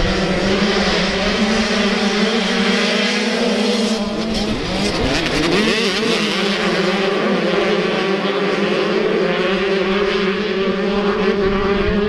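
A pack of 85cc two-stroke motocross bikes held at high revs. About four to five seconds in the pitch shifts and glides as they get away and race off.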